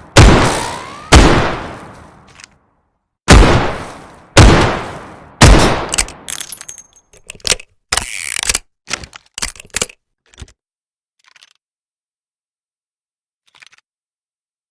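Revolver sound effect: five loud shots, two about a second apart, then after a short pause three more a second apart, each ringing out as it fades. About four seconds of quicker metallic clicks and rattles of the gun's mechanism follow, then a few faint clicks.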